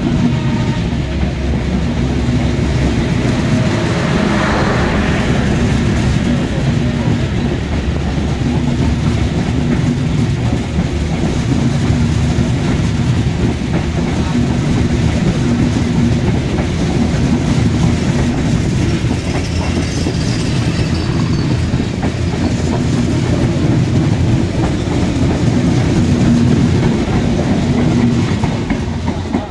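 Passenger coaches of an intercity express train running past at speed on the adjacent track: a loud, steady rumble with wheels clattering over the rail joints. It falls away near the end as the last coach goes by.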